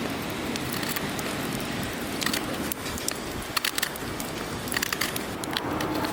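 Wood fire crackling in a small fire grill, with sharp pops scattered through it, over a steady rush of strong wind.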